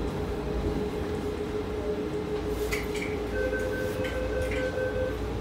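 Taipei Metro Wenhu line rubber-tyred automated train running into a station, with a steady low rumble and a steady whine. A second, higher tone joins a little past the middle, along with a few light clicks.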